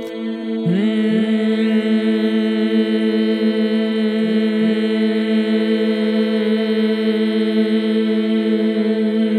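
Meditative vocal toning: voices hold one steady low note with rich overtones, a single sound meant to set the whole body vibrating. A few times a voice comes back in with a short upward slide into the note while the held tone carries on.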